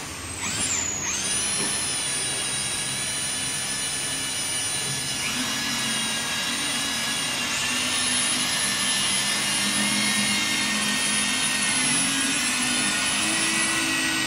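Small handheld electric polisher spinning a pad against a glass pane while polishing it, a steady high motor whine. In the first second or two the whine drops and spins back up.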